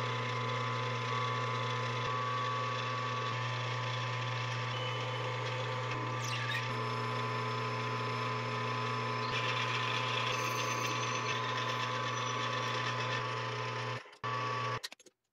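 Metal lathe running steadily, a motor hum with a steady whine, as it turns down aluminium bar stock with a carbide tool. It cuts off near the end.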